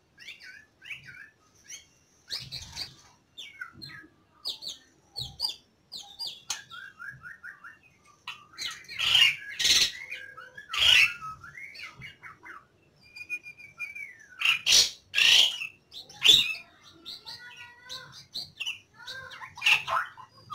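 White-rumped shama (murai batu) singing and calling: a run of varied short whistled phrases and chirps, with several loud sharp notes around the middle and again near the end.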